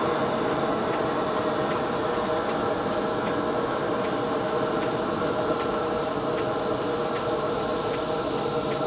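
Tram running along street track, heard from the driver's cab: a steady running hum and rumble with a light tick a little more often than once a second.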